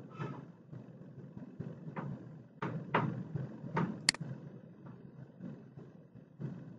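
A faint low hum of background noise, with about five sharp clicks and knocks between two and four seconds in.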